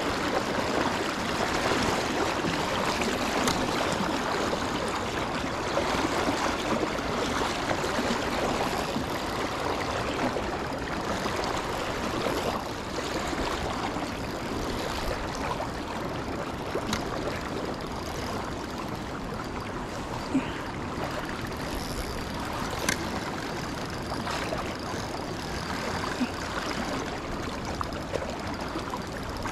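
Shallow river running over rocks, a steady rushing and gurgling of water, a little louder in the first half. A few sharp clicks stand out over it.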